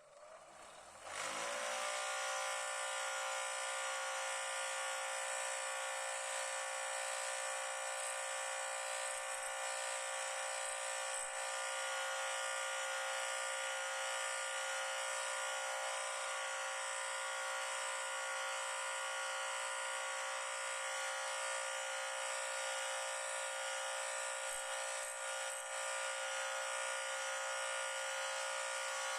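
A small electric power tool's motor spins up about a second in, then runs at a steady high-pitched whine.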